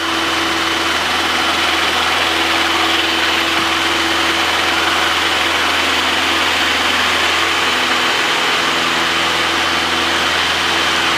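Cessna 150's four-cylinder Continental O-200 engine and propeller at full power for the takeoff roll, heard inside the cabin. It is a steady drone that swells slightly at the start and then holds even.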